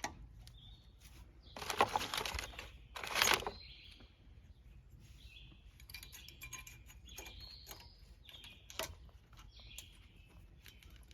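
Thin steel brake pad clips clinking and clicking as they are handled and pressed into a caliper bracket, with two louder metallic rattles about two and three seconds in. Birds chirp faintly at intervals.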